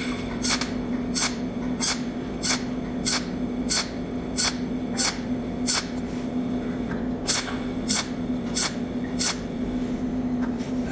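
Cold welding machine pulsing spot welds through its tungsten electrode: a sharp snap with each discharge, about one and a half a second, building a bead of overlapping spots. The snaps pause for about a second and a half near the middle, then four more follow, over a steady low hum.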